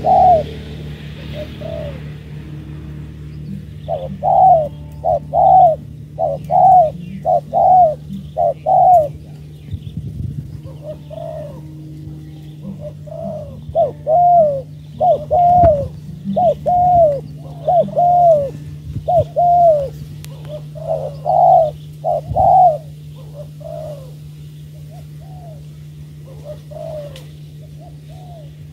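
Spotted doves cooing in runs of short, quick, repeated coos, several a second, fading to fainter coos after about two thirds of the way through. A steady low hum runs underneath.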